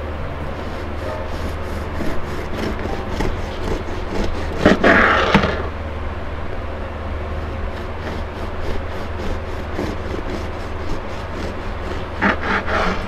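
Bread knife sawing back and forth through a crusted loaf of homemade sandwich bread on a plastic cutting board, a repeated rubbing and scraping, with louder rasps about five seconds in and again near the end, over a steady low hum.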